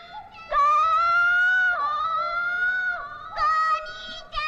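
A child's voice in a cartoon shouting a long, drawn-out call of "Go-niichan!" ("big brother!"). The syllables are held for over a second each and drop in pitch at their ends, followed by a shorter repeated call.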